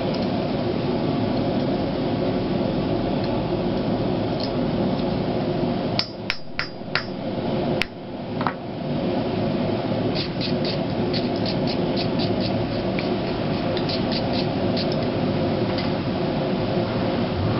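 Blacksmith's hand hammer striking steel bar on an anvil: a handful of sharp ringing blows about six to eight seconds in, then a quick run of lighter taps, over a steady rushing noise.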